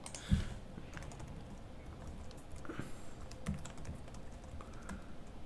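Computer keyboard typing, faint scattered key clicks, with one low thump about a third of a second in.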